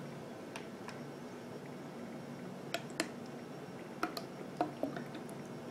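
Faint scattered clicks and small taps as soy sauce is poured from a bottle into a metal tablespoon and tipped into a bowl, over a low steady hum.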